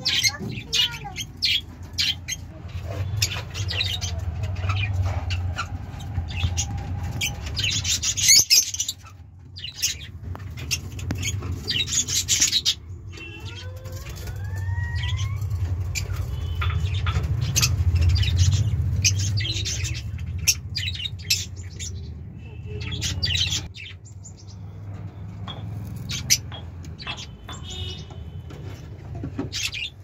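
Lovebirds chirping and squawking in many short, sharp calls, with a steady low rumble underneath.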